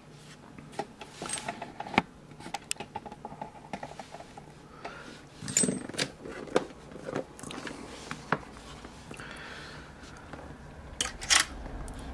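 Small metallic clicks, taps and scrapes of a brass Schlage Everest lock core being handled and fitted to a pinning tray, with two sharper clicks near the end.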